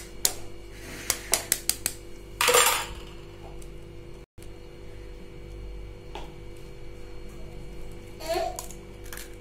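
A hen's egg tapped against the rim of a glass bowl, a quick series of sharp clicks, then a louder crunch about two and a half seconds in as the shell cracks.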